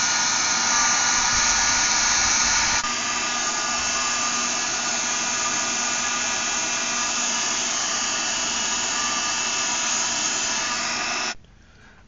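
Hand-held hair dryer blowing hot air steadily, a motor whine over rushing air, heating the laptop's video card area through its vents to reflow it. The level drops a little about three seconds in, and the sound cuts off suddenly about a second before the end.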